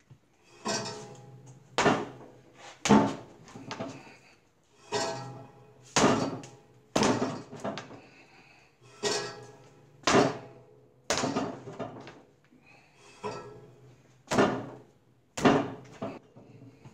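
Clay being wedged by hand on a plaster slab: a dull thud about once a second as the lump is brought down and pressed into the plaster, with music playing underneath.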